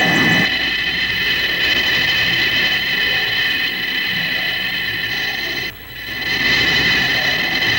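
Electronic sound effect of the creeping web fungus: several steady high held tones over a rough, noisy lower layer, briefly dropping out about six seconds in.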